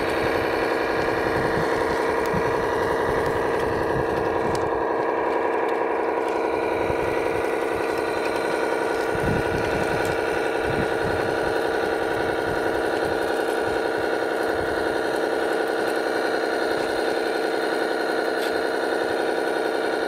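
Engine sound from a radio-controlled truck's sound unit, a simulated diesel running at a steady, unchanging pitch, with faint irregular low rumbles beneath.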